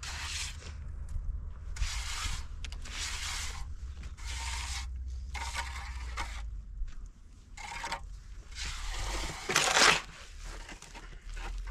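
Steel trowel scraping and smoothing wet cement on a cinder-block fireplace top, in a series of short strokes, the loudest near the end.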